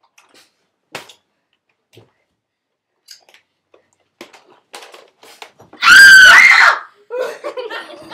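A child's loud, high-pitched scream lasting about a second, rising at the end, about six seconds in. Before it come scattered knocks and scuffling from rough play; after it, giggling and laughter.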